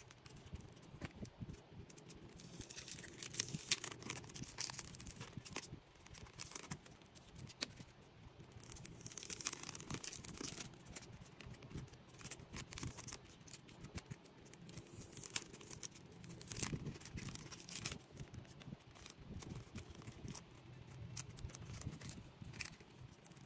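Photocards in clear plastic sleeves being handled and sorted: irregular crinkling of the plastic and light clicks as cards slide and tap against one another.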